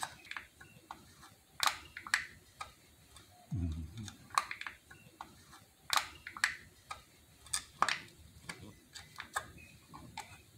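Fingers picking and tearing at the foil seal on the neck of an engine oil bottle: irregular sharp clicks and crackles, roughly two a second.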